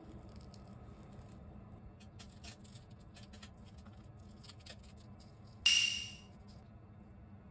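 Faint scattered clicks and crinkles of hands handling thin raw pork slices on plastic cling wrap over a wooden cutting board. About five and a half seconds in, a short bright hit with a ringing tone that quickly dies away.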